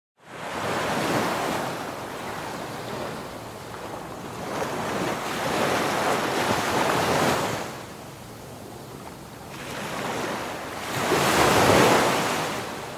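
Sea surf: waves breaking and washing in, swelling three times, the last one loudest.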